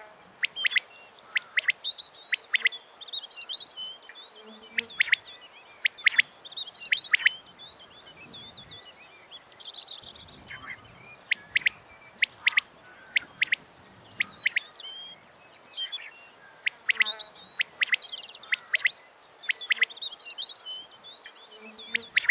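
Small birds chirping and calling: clusters of quick, high chirps every few seconds, with a quieter stretch in the middle.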